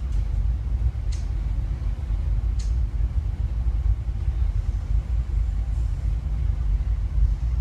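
Steady low rumble of a car interior on the move, from a film soundtrack recorded off a screen, with two faint short hisses about a second and two and a half seconds in.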